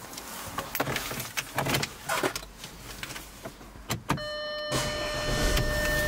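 Handling clicks and knocks inside an Audi A5's cabin. About four seconds in comes a click as the ignition is switched on, then a steady electronic dashboard chime lasting about two seconds, with a low hum coming up beneath it.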